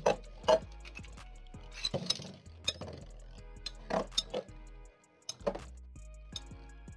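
Two Beyblade spinning tops, one a Cyber Pegasus 100HF, clashing in a plastic stadium: about half a dozen sharp clinks, irregularly spaced. Background music with a steady beat plays underneath.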